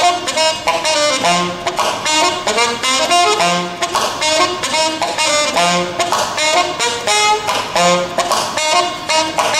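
Saxophone playing a jazz melody live over a rhythmic accompaniment, with a low note recurring about every two seconds.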